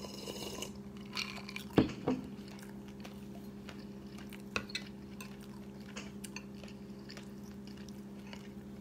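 A person drinking from a glass at the start, with a sharp knock a little before two seconds in. Then scattered soft mouth clicks and chewing over a steady low hum.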